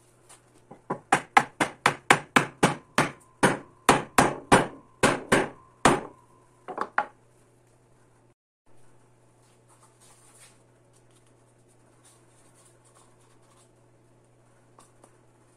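Claw hammer striking wood in a rapid run of about two dozen blows, roughly five a second, then two or three lighter knocks; the blows stop about seven seconds in.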